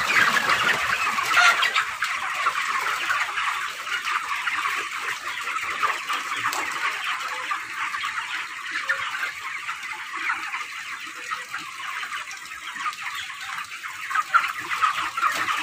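A large flock of 25-day-old broiler chickens cheeping all at once, a dense, unbroken chorus of high calls.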